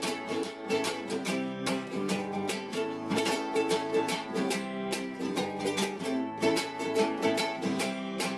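An acoustic string instrument strummed in quick, even strokes over a repeating chord pattern: the instrumental ending of the song, with no singing.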